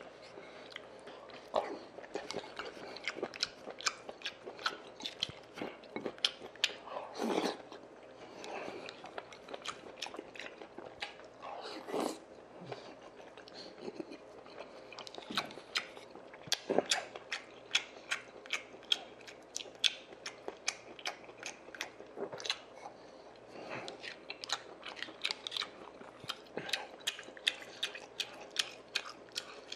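Close-miked chewing and eating of sundae-gukbap (Korean blood-sausage and rice soup) taken by spoon from a bowl: many sharp, wet mouth clicks, several a second, with a few louder mouthfuls along the way.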